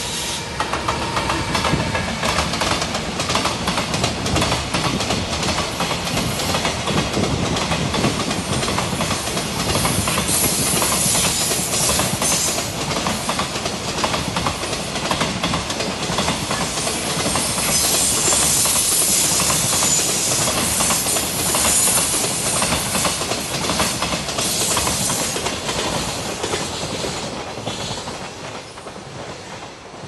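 Long freight train of container wagons hauled by an EF210 'Momotaro' electric locomotive passing close by, the steady noise of its wheels on the rails, dying away over the last few seconds as the train clears.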